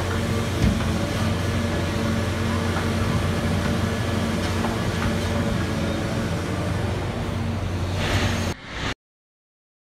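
Large John Deere crawler excavator's diesel engine running steadily under work while it pours a bucket of rock into a dump truck, with one sharp knock about half a second in. The sound cuts off suddenly near the end.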